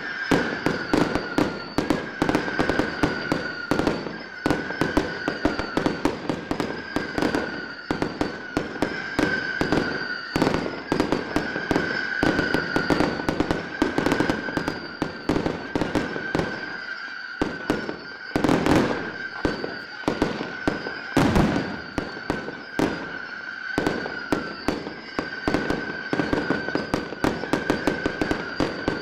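Fireworks display: a rapid, unbroken string of shots bursting close together, several sharp bangs a second, two of them heavier about two-thirds of the way through. A steady high whistle runs underneath.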